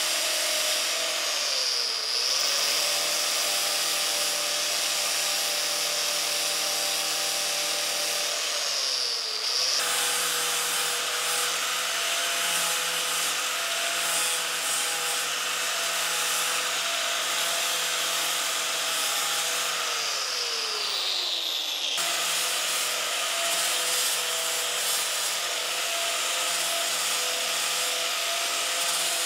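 Angle grinder grinding down weld seams on steel sheet metal, a steady whine over the rasp of the disc on the metal. Its pitch sags three times as the disc is pressed into the work, then picks back up.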